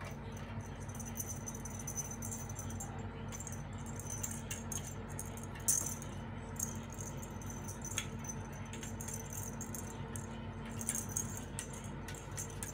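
Kitten scrabbling about inside a rope-strung enclosure: light scratching, rattling and scattered clicks, over a steady low hum.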